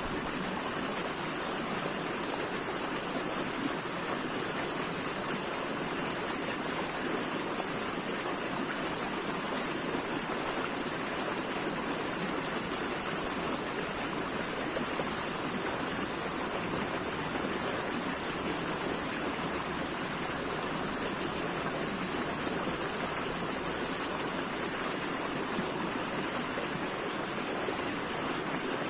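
Water flowing steadily in an even, unbroken rush, with no breaks or changes.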